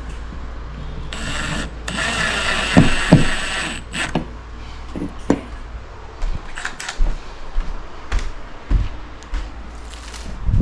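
Tools and hardware being handled during electrical work: a harsh scraping noise for about three seconds with two thumps in it, then scattered clicks and knocks.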